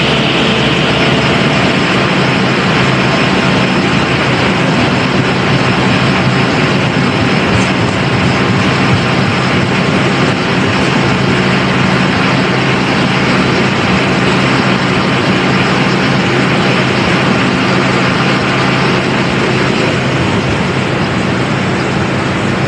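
Diesel locomotive-hauled passenger train running at close range: a steady engine drone under a constant rumble of wheels and carriages.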